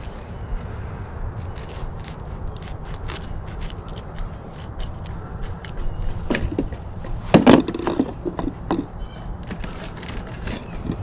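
Fillet knife cutting through a small bait fish: a run of small crunching, scraping clicks, with a louder cluster of strokes about six to eight seconds in, over a steady low rumble.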